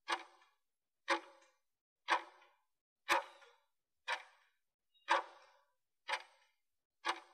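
Countdown timer ticking once a second, eight short clock-like ticks marking the last seconds of a 20-second work interval before the break.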